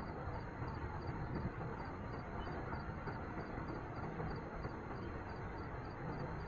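Steady low rumble and hiss of outdoor ambience, with no distinct event standing out.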